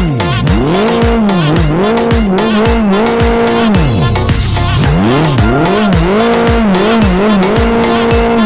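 Electronic music with a steady kick drum under a lead tone that keeps swooping down and back up in pitch. A little past the middle the lead dips and blurs into a low rumble for about a second, then the swooping returns.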